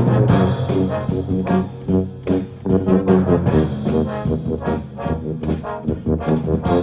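Concert band brass playing loud, rhythmic chords, with a Hirsbrunner HBS 290 tuba holding low notes under them.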